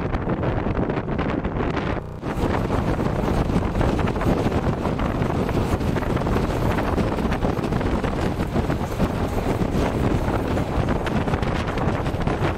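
Indian Railways express passenger train running at speed: a steady rumble and rush of the moving coaches, with wind buffeting the microphone. The noise drops out briefly about two seconds in.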